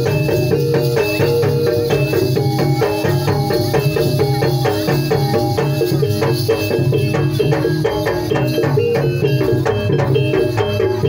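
Loud live traditional Indonesian ensemble music of the gamelan kind: a fast, even run of repeating pitched metallic notes, several a second, over steady drumming.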